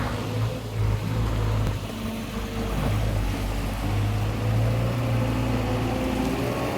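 Large ventilation fan of a biomass drying floor running steadily: a low hum under a rush of blown air.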